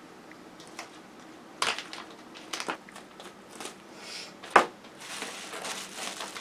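Plastic tackle packaging crinkling and rustling as lure packs are handled, with scattered clicks and one sharp knock about four and a half seconds in. Near the end comes a denser, steady rustle as a plastic mailer bag is dug into.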